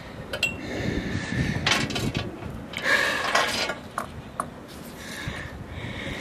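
Metal clinking and jingling of a Siberian husky's collar tags and leash clip as the dog moves about, in scattered clicks with a couple of longer rattling stretches.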